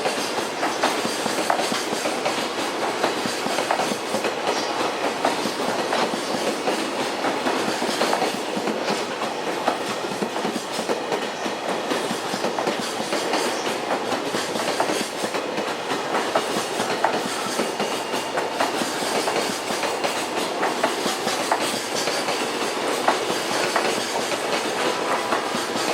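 Freight train of Koki container flatcars, hauled by an EH500 electric locomotive, rolling past with a steady clatter of wheels over the rail joints.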